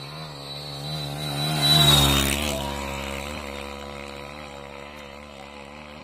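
Motorcycle engines running, with one growing loud about two seconds in and then fading away.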